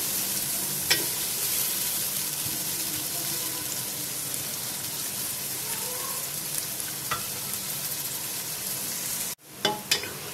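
Chopped onions sizzling steadily in hot oil in an aluminium pressure cooker as they are browned, with a few light knocks of a wooden spoon against the pot. The sound cuts out for a moment near the end, then resumes with the spoon stirring and scraping.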